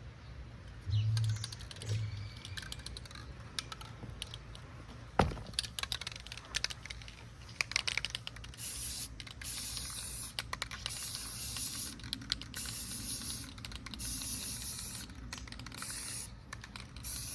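Aerosol spray paint can hissing in a run of bursts with brief breaks, starting about halfway through. Before that come scattered light clicks and rattles and a couple of low thumps.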